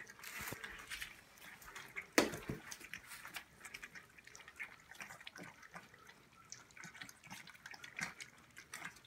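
A litter of five-week-old puppies lapping milk replacer from a shared stainless steel saucer bowl: a faint, continuous, irregular patter of small wet licking clicks, with one sharper click about two seconds in.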